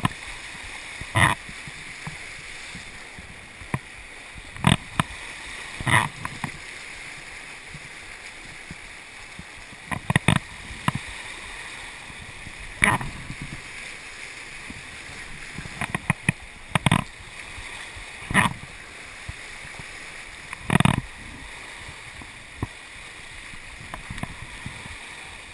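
River water rushing steadily around a whitewater kayak, broken by sharp splashes and slaps of water against the hull and the low-mounted camera about every two to four seconds.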